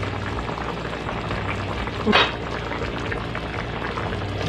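Chicken mechado stew simmering in an aluminium pan on a gas stove: steady bubbling of the tomato sauce, with one brief knock about two seconds in.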